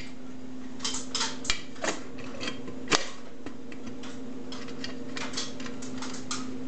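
Light clicks and taps of a ceiling fan's housing cover being handled and fitted around the motor, in two clusters with one louder knock about three seconds in, over a steady low hum.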